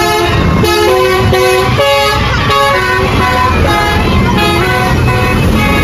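A multi-tone 'telolet' horn on a passing bus or truck playing a quick tune of about a dozen short notes that jump between several pitches, over the low rumble of the vehicle.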